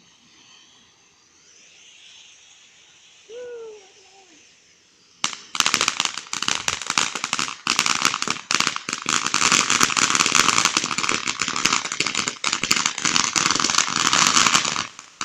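Backyard firework going off with a dense, rapid crackle of many small pops. It starts suddenly about five seconds in, runs for about ten seconds, then stops.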